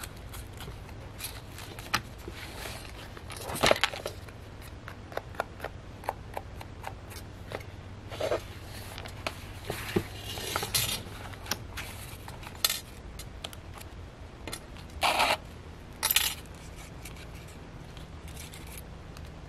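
Hands handling a cord-bound junk journal: scattered taps, clicks and rustles of thick paper and file-folder pages as the cord is tugged and the pages are flipped, loudest about four seconds in and again around fifteen to sixteen seconds, over a steady low hum.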